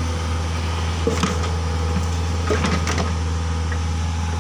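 Mini excavator engine idling steadily, with a few short knocks between one and three seconds in.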